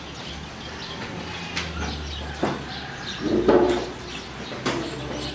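Birds chirping, with a few sharp knocks and a brief louder pitched call about three and a half seconds in.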